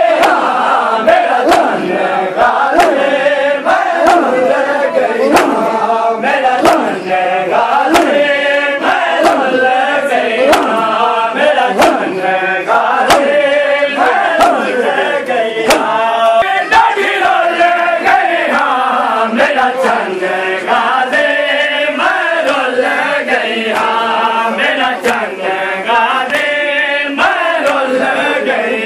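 Shia matam group of men chanting a mourning noha in unison while striking their chests with open hands. The sharp slaps land together in a steady beat, about one and a half a second, under the chant.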